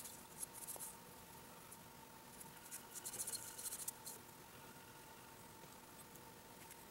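Faint scratchy rubbing as a small steel revolver part is scrubbed clean by hand, taking off a few specks of rust. It comes in two spells, the second longer, over a faint steady hum.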